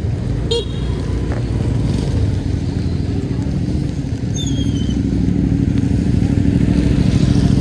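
Motorcycle engine running steadily close by, growing a little louder near the end, with a short high beep about half a second in.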